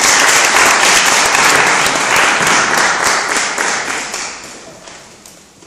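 Audience applauding, the clapping fading away over the last second or two.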